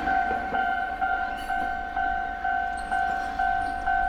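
Level-crossing warning alarm: a clear ding repeating about twice a second, over a low rumble.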